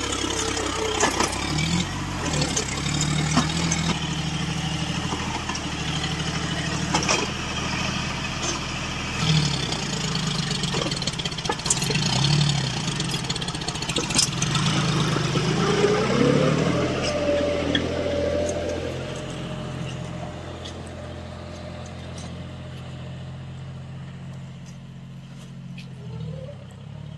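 John Deere tractor's diesel engine running hard under load, its speed rising and falling repeatedly as it hauls a sand-loaded trolley up a sandy bank, with scattered knocks; it fades away over the last several seconds.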